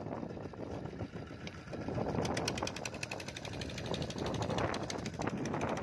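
Rapid, even mechanical knocking, about ten knocks a second, coming in about two seconds in over the rush of wind and water: the fishing boat's engine running.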